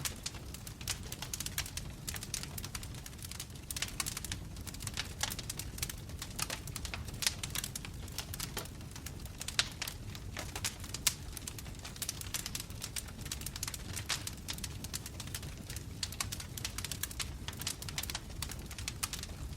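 Wood fire of burning logs crackling, with many sharp irregular pops and snaps over a steady low rumble.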